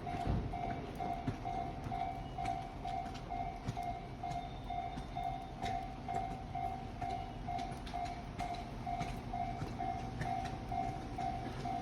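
Japanese level-crossing warning alarm ringing, its electronic bell tone pulsing evenly just under twice a second, over a low background rumble.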